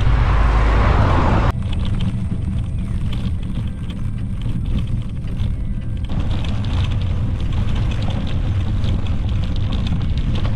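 Wind rumble on a handlebar camera's microphone and tyre noise from a bicycle riding along a sealed road, with a car passing close by in the first second or so. The sound drops and changes abruptly about a second and a half in and again around six seconds.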